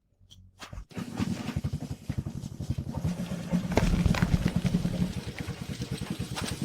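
Diesel engine running with a rapid, even chugging, starting about a second in.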